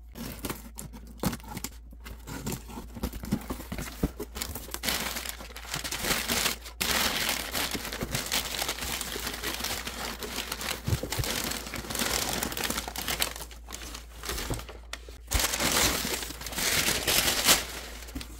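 Crumpled packing paper crinkling and rustling as it is handled and pulled out of a cardboard box, with short scrapes and knocks of the cardboard.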